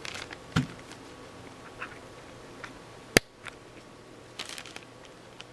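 Hands handling a camera lens and its packaging: light rustling and small clicks, a soft thump about half a second in and one sharp click about three seconds in.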